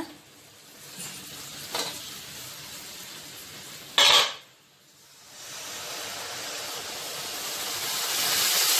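Spiced oil with mustard seeds, curry leaves and dried red chillies frying in a steel kadai with a steady low sizzle, broken by a brief sharp clatter about four seconds in. Near the end a growing, louder hissing sizzle as tamarind water is poured into the hot oil.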